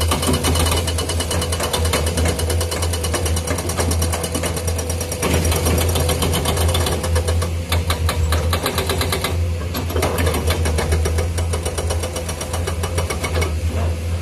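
Hydraulic rock breakers on Komatsu PC210 excavators hammering rock: a fast, steady rattle of blows over the low drone of the diesel engines.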